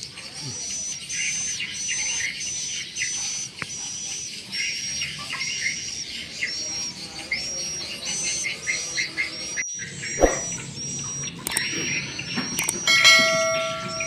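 Swiftlet lure calls played through the tweeter speakers of a swiftlet house: a rapid, very regular chirping, about two high chirps a second with lower twitters between. Near the end a short bell-like chime rings over it.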